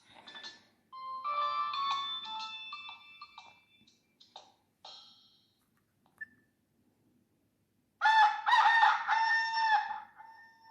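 A Nokia 6600 mobile phone playing its ringtones: the tail of a short electronic ringtone melody, then after a few seconds' pause the phone's rooster ringtone, a recorded rooster crowing once for about two and a half seconds near the end.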